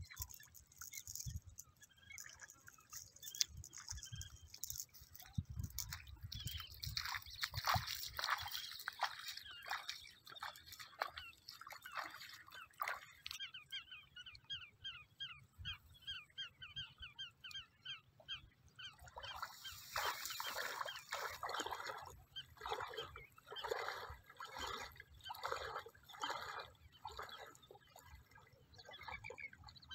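Water sloshing in a steady rhythm of steps as a man wades through a shallow river. A bird's rapid, repeated high chirping runs for a few seconds in the middle.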